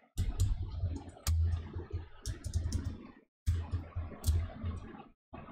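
Irregular sharp clicks and dull taps from working a computer's keys and input devices, breaking off twice for a moment.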